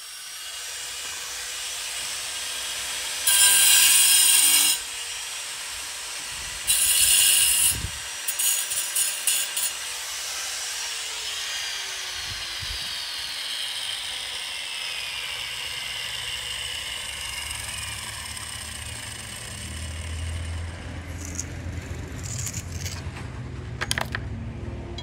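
Angle grinder with a cutting disc running with a steady whine, biting into ceramic tile in two loud bursts about three and seven seconds in, then in short choppy cuts. After about ten seconds its whine falls in pitch as the disc winds down. A low rumble with a few sharp knocks follows near the end.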